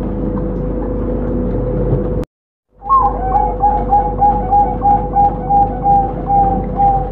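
Zebra dove (perkutut) singing. After a brief dropout about two seconds in, it gives a long run of short, evenly spaced coo notes, about three a second, over a steady hum.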